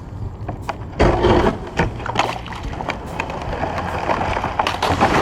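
Water sloshing and lapping against a kayak, with irregular small knocks and splashes, louder from about a second in.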